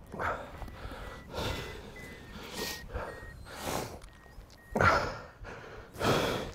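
A person breathing heavily and audibly, about one breath every second.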